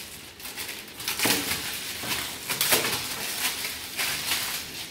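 Clear plastic wrapping crinkling and tearing as it is pulled off a canvas board, in irregular bursts with sharper crackles about a second and a half in and near the three-second mark.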